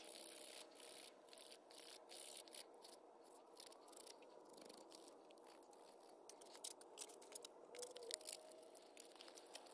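Near silence, with faint rubbing and small clicks of fingers handling a small steel boring-head part. The last few seconds bring a few slightly louder scratches as sandpaper is worked against it.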